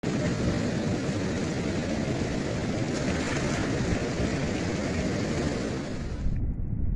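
Steady rush of turbulent river water pouring out below a sluice gate, a dense noise with no pitch. A little over six seconds in it cuts off abruptly to a duller, lower noise.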